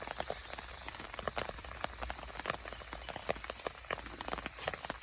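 Rain pattering: a dense, irregular tapping of many small drops with no rhythm.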